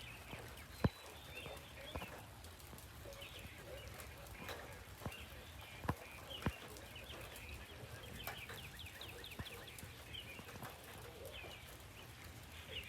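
Birds chirping, with one quick trill just past the middle, over steady background noise, and scattered sharp knocks, the loudest about a second in.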